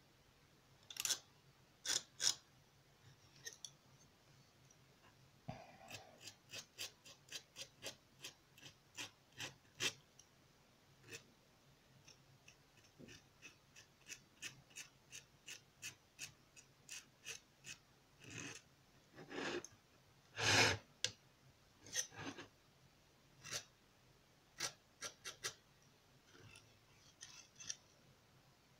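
Metal palette knife scraping and tapping on a palette as it works decorative plaster: a long run of short scrapes, roughly one to two a second, with a few longer, louder strokes a little past the middle.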